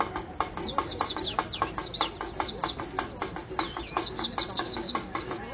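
A rapid run of high, looping bird-like whistles, about four a second, starting about a second in. Underneath are an even beat of sharp taps and low plucked-string notes in a Lumad music piece meant to evoke the forest's birds.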